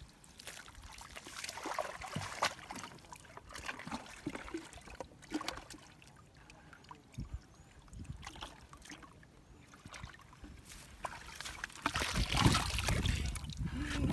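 Muddy water dripping, trickling and splashing as hands scoop mud and a plastic bucket is lifted dripping out of a shallow pool. In the last couple of seconds it turns into a louder rush and slosh of water as the bucket is tipped out.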